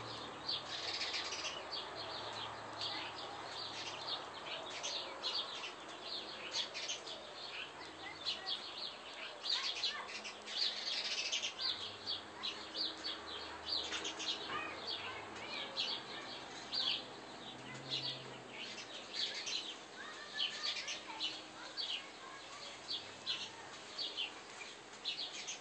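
Birds chirping: many short, high chirps in irregular runs, over a faint steady background hum.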